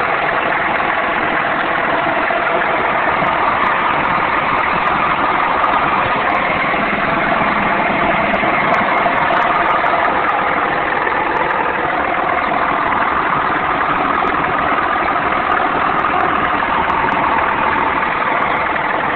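BMW 745i's 4.4-litre N62 V8 idling steadily with a loud engine knock, which the owner places at the front left (driver's side) and has not yet diagnosed.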